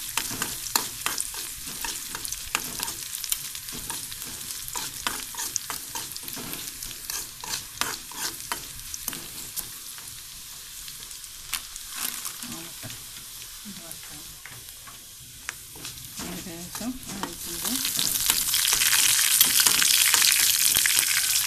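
Sliced shallots and mustard seeds frying in coconut oil in a metal pan, sizzling steadily while a metal spoon stirs and clicks against the pan. About 17 seconds in the sizzling swells and gets much louder. This is the tempering stage of sambar.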